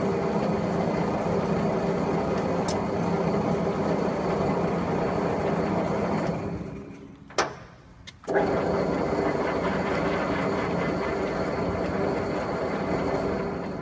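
Blanchard No. 11 rotary surface grinder running with its magnetic chuck turning: a steady machine hum with a few held tones. About six seconds in it winds down to much quieter, a sharp click follows, and a moment later it starts up again abruptly, then begins to wind down once more near the end.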